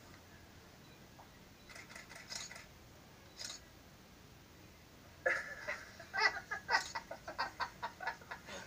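Spotted hyenas and African wild dogs calling at close quarters. A few short high calls come first, then from about five seconds in a rapid run of giggle-like yelps, about four or five a second.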